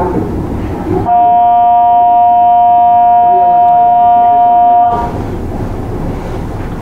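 A train horn sounds one steady, loud blast of about four seconds, starting about a second in, over the rumble of the train running on the rails.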